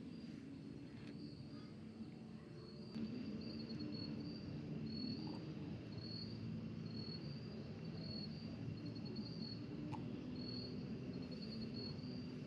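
Crickets chirping in short trills that repeat about once a second, over a steady low hum. A couple of faint clicks come through, one about three seconds in and one near ten seconds.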